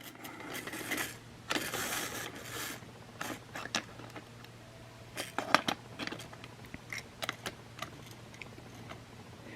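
Handling noise as small toy trains are picked up and moved: scattered light clicks, knocks and scraping rustles, busiest in the first few seconds, over a faint steady low hum.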